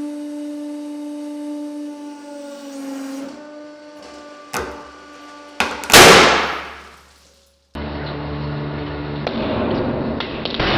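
Hydraulic press running with a steady hum that drops in pitch as it loads a stack of post-it notes, two sharp cracks, then a loud bang as the stack bursts under the load, dying away over about a second. After a short silence, a steady low rumble takes over.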